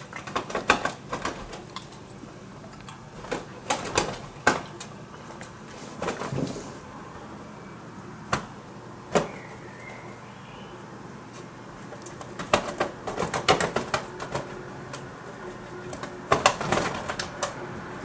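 Two wood pigeons fighting, striking each other with their wings: bouts of rapid sharp wing slaps and flapping, with a few single slaps between the bouts.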